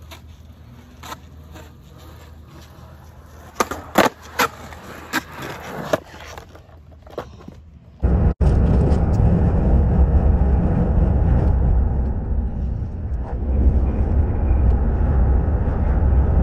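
Skateboard on a concrete skatepark: sharp clacks and knocks of the board, a cluster of them a few seconds in. About halfway through this gives way to a loud, steady low rumble of road and wind noise from a moving car.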